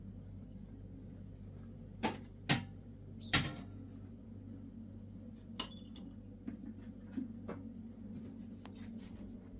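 Three sharp knocks or clinks in quick succession, about two to three and a half seconds in, then a few fainter clicks, over a steady low hum.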